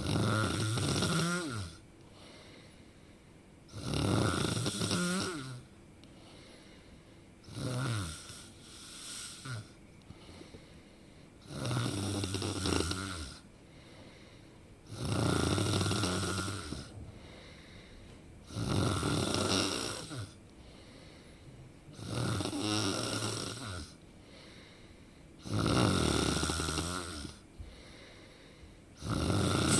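A person snoring in a slow, regular rhythm: about nine loud, rasping snores, each around a second and a half long and roughly three and a half seconds apart, some carrying a falling tone.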